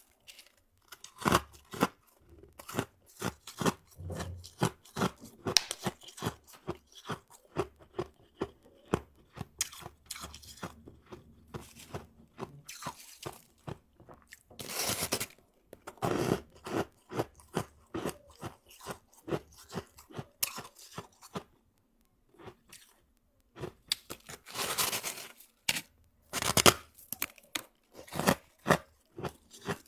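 Freezer frost ice being bitten and chewed: a quick run of crisp crunches, with several longer, louder crunches in among them.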